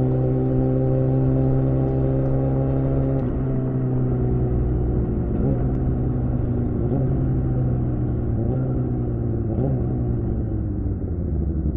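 Suzuki GSX-R600 K7 inline-four running through a Yoshimura R11 exhaust, held at steady revs for about three seconds. After that its pitch wavers briefly several times as the throttle changes.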